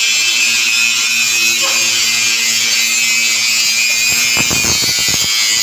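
Steady high hiss and hum of a power tool working steel, with the hum stopping a little after four seconds in, followed by a quick run of knocks.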